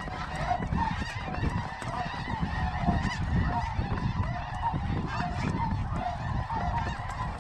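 A large flock of snow geese calling all at once, a dense, steady chorus of overlapping high honks, with wind rumbling on the microphone.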